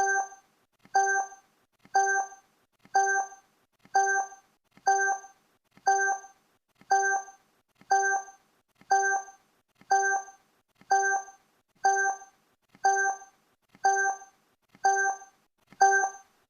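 Countdown timer sound effect: a short electronic blip with a sharp start marks each second, about sixteen of them in an even, unchanging rhythm.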